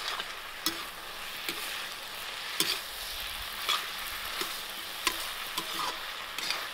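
Metal ladle scraping and knocking against a kadhai as capsicum, potato and peas are stirred, with a steady sizzle of the vegetables frying underneath. The scrapes come about once a second.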